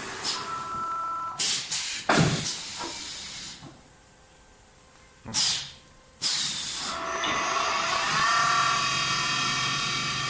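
Automatic CNC wood-turning lathe working through a cycle: air hisses and a few sharp knocks from its pneumatic gear, a short loud blast of air about halfway, then the machine starts up again with a whine that rises in pitch and settles into a steady run.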